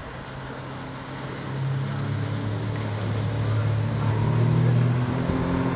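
Outboard motor of a 33-foot sport cruiser running at speed, a steady engine note that grows louder about one and a half seconds in as the boat passes close, with the rush of its wake.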